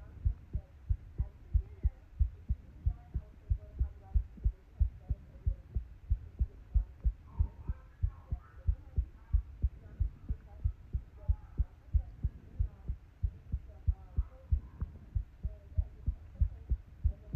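A person's heartbeat picked up by the microphone: steady, regular low thumps, about three a second.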